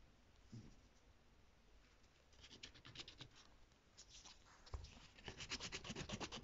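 Coloured pencil scribbling on paper in quick back-and-forth strokes, one short run about two seconds in and a faster run of about nine strokes a second in the last second and a half. A single soft knock comes just before the second run.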